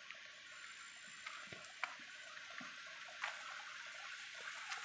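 Faint, steady hiss of distant rushing water, with a few light clicks of footsteps on a leaf-littered trail.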